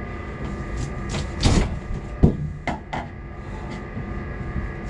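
A few sharp metal knocks and clinks from hand tools working on an HVAC fan's bearing, over the steady hum of running machinery.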